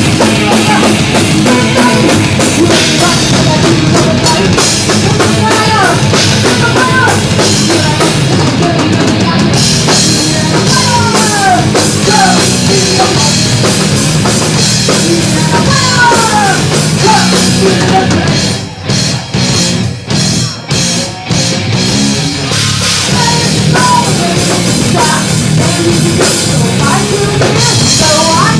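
Thrash metal band playing live: distorted electric guitars, bass and drum kit, with high notes sliding up and down over the riffs. About two thirds of the way through, the band plays a run of short stop-start hits with brief gaps between them, then the full riff resumes.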